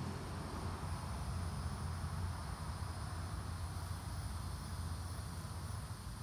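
Outdoor ambience: faint, steady high-pitched insect trilling over a steady low rumble.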